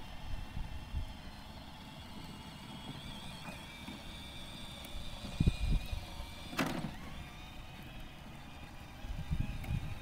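Electric drive motors of a full-size R2-D2 replica whining steadily as it rolls on asphalt. The robot's wheel-to-motor couplings have been reworked. Wind buffets the microphone with low thumps, and a brief sharp burst of noise comes about two-thirds of the way through.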